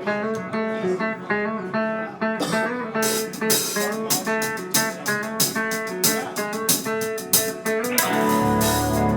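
Live band music: a guitar picking a repeating riff, with cymbal strokes joining about three seconds in and the full band with bass coming in near the end.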